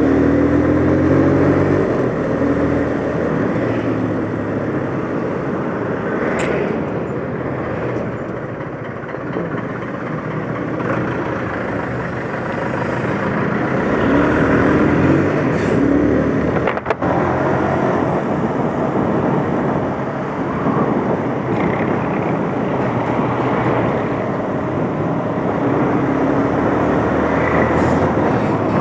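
Motorcycle engine running while riding in traffic, its pitch rising and falling with throttle changes, under steady road noise.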